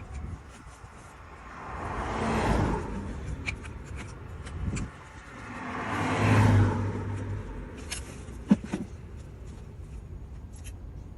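Two vehicles driving past one after the other, each one's noise swelling up and fading away. A single sharp click comes a little after the second one.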